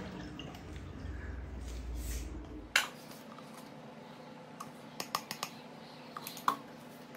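Tap water running into a steel sink as raw chicken pieces are rinsed by hand in a plastic bowl, cutting off with a sharp click after about two and a half seconds. Then a few light clicks and taps of a small measuring spoon against the bowl as chili powder is sprinkled over the chicken.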